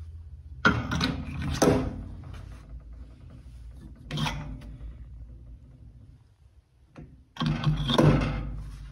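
Steel quick-change lathe tool holders clinking and knocking against each other and their rack as a hand handles them: a bunch of knocks about a second in, a shorter one around four seconds in, and another near the end.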